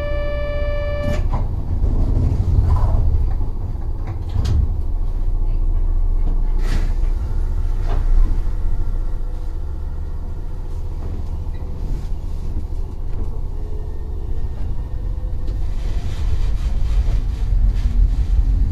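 Kobe Electric Railway train heard from the driver's cab. A steady electronic tone ends about a second in, then the standing train rumbles low with occasional clicks. The rumble grows near the end as the train starts to move.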